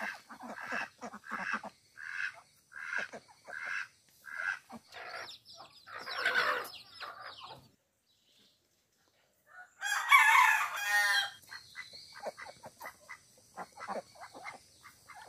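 Chickens clucking in short repeated calls, then a rooster crowing once about ten seconds in, the loudest sound, with more clucking after it.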